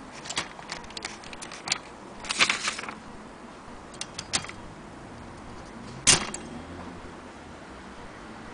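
Vintage Corona typewriter's keys and mechanism clicking and clacking: scattered clacks, a quick rattling run about two and a half seconds in, and one loudest clack about six seconds in.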